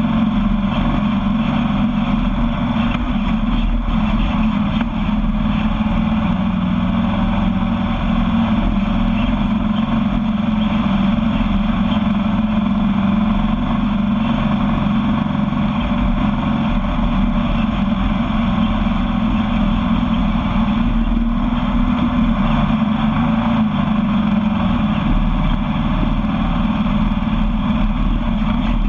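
Sandrail engine running steadily at cruising speed on a dirt track, with a constant rush of noise over it.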